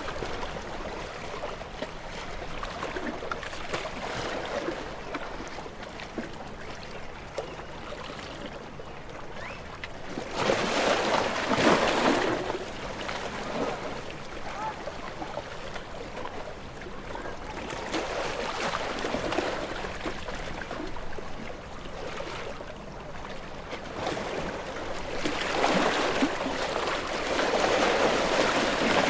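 Sea water washing and rushing, a steady wash that swells louder about a third of the way in and again near the end, like waves coming in.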